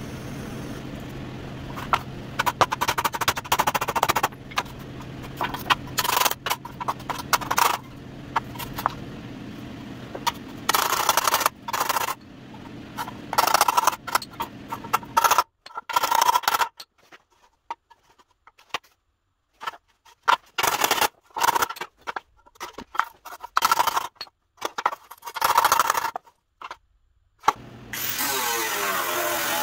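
Hammer blows on the dented sheet-steel top section of a 1948 GMC pickup tailgate: hammer-and-dolly straightening, heard as quick runs of ringing metallic strikes in bursts. A steady low hum runs under the first half and stops about halfway through, and an angle grinder starts up near the end.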